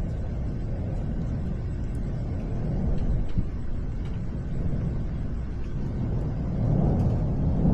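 Distant thunder rolling as a low, continuous rumble, swelling louder near the end.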